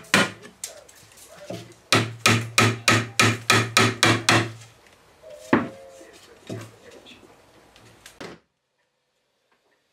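Hammer blows on wood. After a couple of single knocks comes a quick, even run of about ten blows, roughly three a second, with a low ringing under each, then a few scattered knocks. The sound cuts off suddenly near the end.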